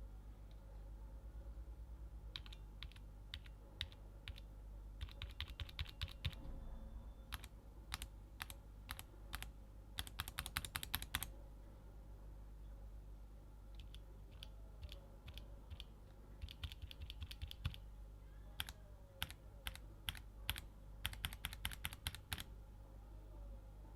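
Mechanical keyboard keys with Gateron linear switches pressed: Gateron Milky Yellow switches in the first half, then Gateron Milky Black switches from about halfway. Single keystrokes and short runs of presses, with a fast flurry of keystrokes near the middle and again near the end.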